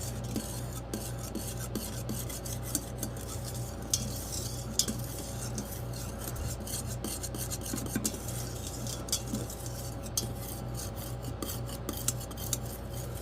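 A spoon stirring thickening gravy in an Instant Pot's steel inner pot on sauté, with many small scrapes and clinks against the pot, over a steady low hum.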